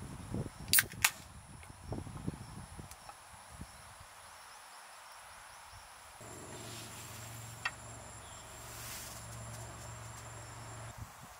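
Two sharp clicks in quick succession about a second in, then a few softer knocks. About six seconds in a steady low hum starts and runs until near the end, over a thin steady high-pitched tone.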